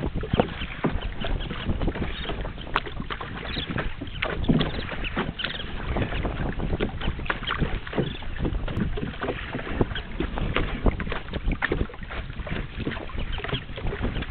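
Wind buffeting the microphone and water splashing against the hull of a boat moving on a river, an uneven rush full of short crackles.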